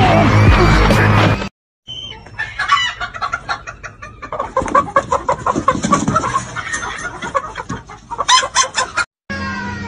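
Loud music for the first second and a half, cutting off. Then a black chicken clucking in a quick run of short, sharp calls for several seconds.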